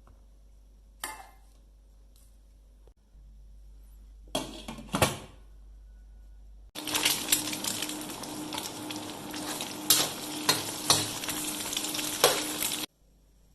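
Kitchen utensils clink against dishes twice, then food sizzles in a hot pan for about six seconds while being stirred, with sharp scraping clicks, and the sizzling cuts off suddenly.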